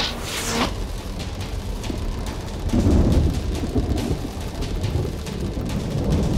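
Dramatised storm sound effects: a short whoosh at the very start as the arrows are loosed, then steady rain-like crackle with a deep thunder rumble about three seconds in.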